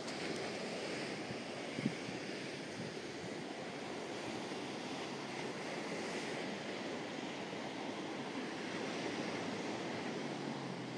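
Steady rush of sea surf washing on the shore, mixed with wind on the microphone. A single short knock just under two seconds in.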